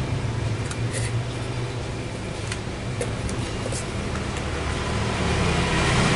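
Small cardboard box being opened by hand: scattered short crackles and scrapes of tape and flaps, over a steady low hum.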